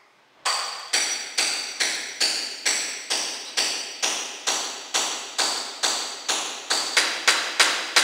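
Hammer blows in a steady rhythm, a little over two a second, each with a bright ringing, starting about half a second in: knocking at a poorly seated ceramic floor tile to loosen it for removal.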